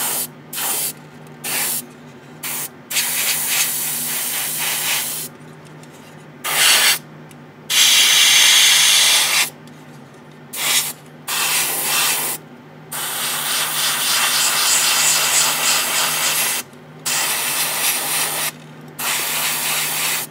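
Gaahleri GHAD-39 airbrush spraying paint in repeated trigger-controlled bursts of hiss, several short ones then longer passes of a few seconds each, run at a very low air pressure of about 15 psi. A steady low hum runs underneath.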